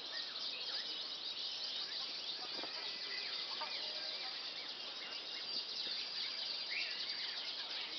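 Canary singing a continuous song of rapid chirps and trills with quick pitch glides.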